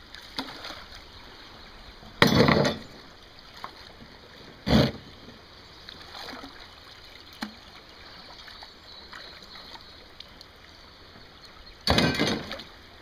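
Water sloshing as a man wades in a shallow creek, loading steel traps into a floating plastic tub. Three short, loud splashes and knocks come about two seconds in, about five seconds in, and near the end.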